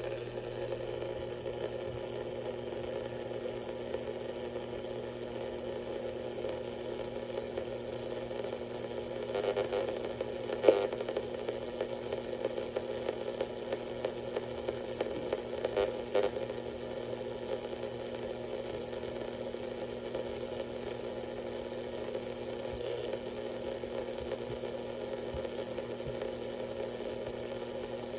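A steady electronic drone of several held tones, with faint crackle underneath. About ten seconds in the crackling swells and a sharp click sounds, and another short crackly stretch comes a few seconds later.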